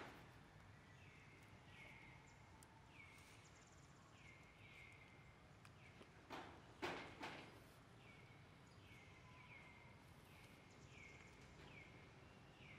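Faint, repeated short high calls from an animal, each dropping quickly in pitch, coming about once a second, with a few louder sharp sounds a little past halfway.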